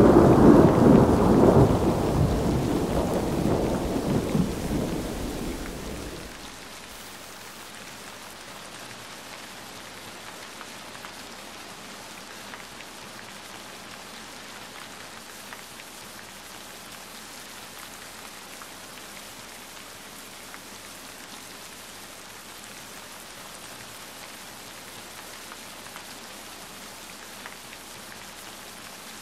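A roll of thunder rumbling and dying away over the first six seconds, then steady rain with a few faint ticks.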